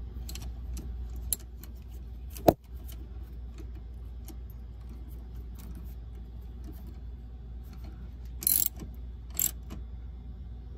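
Ratchet wrench clicking as a new threadlocked bolt is run into the steering shaft's universal joint, with one sharp metallic clack about two and a half seconds in and two short rattles near the end.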